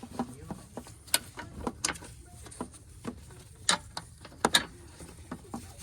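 Scattered sharp clicks and knocks of hand tools and metal hardware being handled during a car battery replacement, a few of them louder than the rest.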